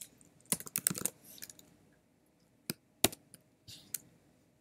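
Computer keyboard keys clicking as text is typed: a quick run of keystrokes about half a second in, then a few single key presses spaced out.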